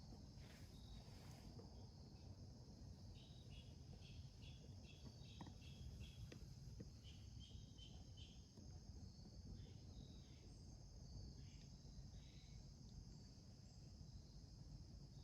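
Faint crickets trilling steadily, with short chirps repeated in little runs, over a low rumble.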